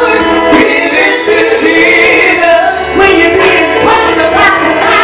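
Gospel singing led by a woman's voice through a handheld microphone, loud and unbroken, with music beneath it.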